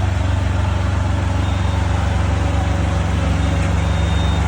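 An engine idling steadily, a deep even hum with a fast regular pulse that does not change.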